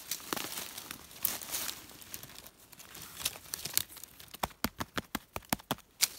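Dry fallen leaves and twigs rustling and crackling in leaf litter, first as someone moves through it and then as a hand works among it. Near the end comes a quick run of sharp crackles.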